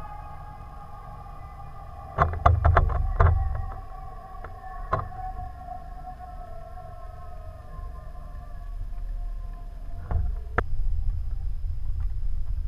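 Muffled underwater sound picked up through a submerged camera's housing: a low rumble with faint humming tones that slowly sink in pitch. A quick run of sharp knocks comes about two seconds in, one more a little later, and two near the end.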